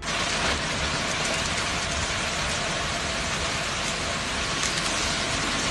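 Heavy hail and rain pelting down, a dense, steady hiss with scattered sharper ticks of individual hailstones striking.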